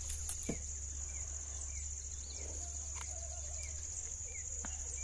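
Steady high-pitched drone of insects, with a bird giving a short falling chirp every second or so.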